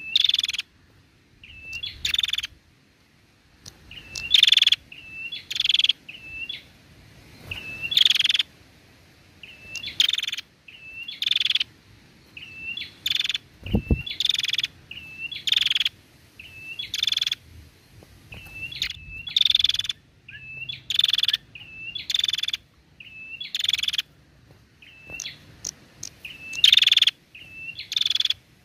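Female prenjak (prinia) calling over and over, in a steady cycle of a short hooked chirp followed by a louder harsh, buzzy rattle, roughly every second or so. A single low thud about halfway through.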